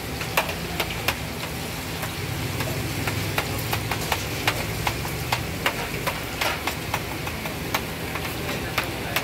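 Battered pieces deep-frying in a large wok of hot oil. A metal slotted spatula makes sharp, irregular clicks and taps against the pan several times a second. Under it runs a steady low hum like an engine.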